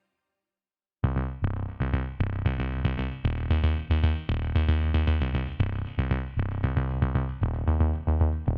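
Background music with a steady electronic beat and synthesizer notes, starting abruptly after about a second of silence.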